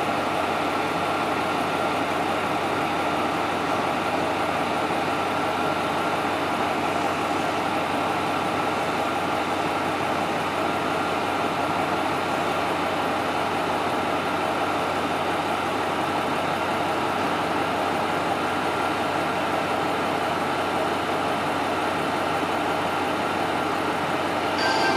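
KiHa 47 diesel railcar's engine idling steadily at the platform. Right at the end a station departure melody begins to play.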